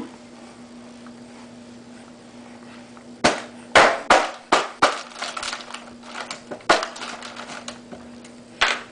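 A run of about a dozen sharp, irregular knocks and crackles starting about three seconds in and thinning out, with one more near the end, over a steady low hum.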